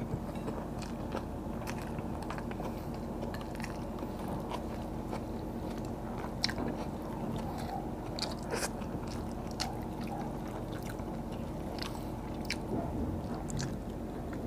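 Close-miked chewing and mouth sounds of a person eating rice and fried fish by hand, with scattered wet smacks and clicks, a few louder ones about six to nine seconds in, over a steady low hum.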